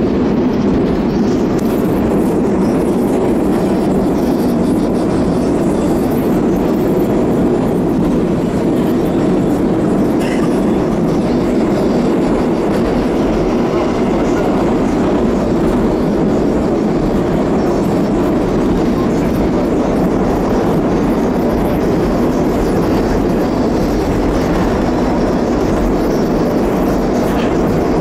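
Moscow Metro train running at speed through a tunnel, heard from inside the carriage: a loud, steady rumble of wheels on rails and tunnel noise.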